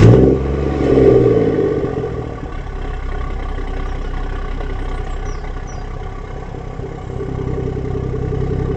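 BMW M240i's turbocharged straight-six starting up, with a loud burst at the start and a rev flare about a second in. It then settles into a steady idle that rises a little near the end.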